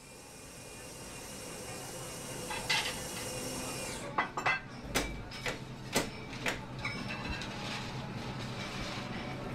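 Background ambience fading in from silence, with a run of sharp clinks and knocks in the middle, the loudest about half a second apart.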